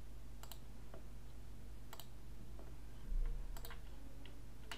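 Computer mouse clicks: a few sharp single and double clicks spaced out over a steady low electrical hum. A brief low thump comes about three seconds in.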